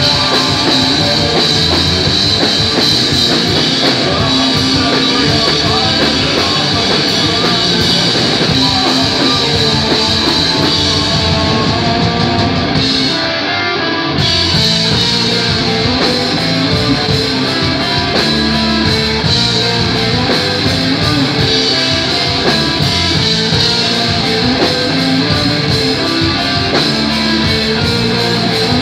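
Live rock band playing loud: electric guitars and a drum kit. The top end briefly thins out about halfway through, then the full band comes back in.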